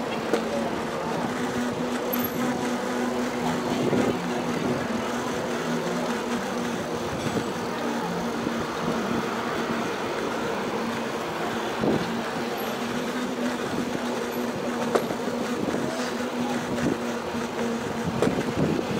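Steady rolling and wind noise of a moving bicycle ride, with a constant low hum underneath and a few light knocks.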